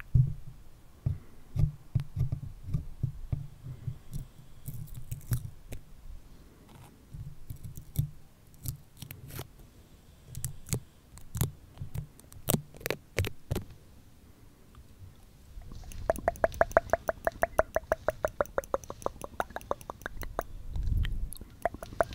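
Stickers handled, pressed on and peeled off a microphone right at the mic: soft low thumps and taps at first, then scattered sharp clicks. About three-quarters of the way in comes a long run of rapid, evenly spaced crackles, the stick-slip of a sticker being peeled slowly.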